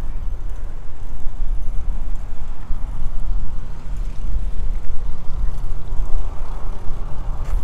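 Wind buffeting the microphone of a camera carried on a moving bicycle: a loud, uneven rumble that swells a little toward the end.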